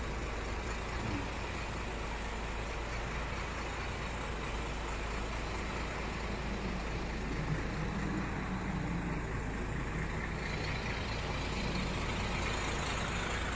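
Steady low rumble of a large bus's diesel engine idling, with a faint low hum swelling between about seven and ten seconds in.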